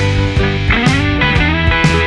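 Background music: an electric-guitar rock track with bending lead notes over a steady beat.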